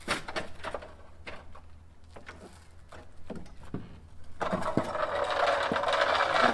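A few scattered knocks as a rider shifts his weight on a bicycle, then, about four seconds in, a loud, rough, fast rattling scrape as the bicycle moves forward on the concrete.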